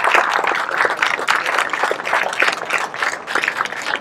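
Audience applauding, many hands clapping at once, the applause gradually thinning out.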